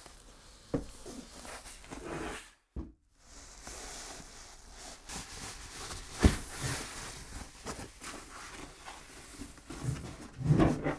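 A thin plastic protective sleeve rustling and crinkling as it is handled and pulled off a flat monitor panel. A few sharp knocks come from the panel being set down and handled, the loudest about six seconds in, and the sound drops out briefly near three seconds.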